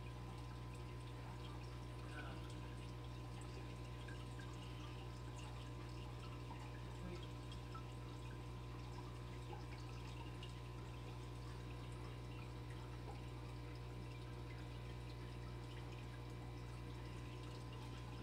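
Aquarium filter running: a steady low hum with faint water trickling and dripping.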